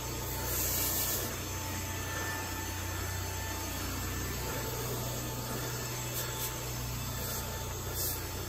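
Carpet pre-spray wand hissing in a short burst about half a second in and in brief spurts near the end, over the steady low hum of the carpet-cleaning equipment.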